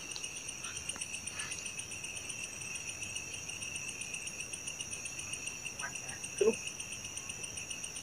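Night insects chirring steadily in a high, rapid pulsing trill. A brief, louder low sound comes about six and a half seconds in.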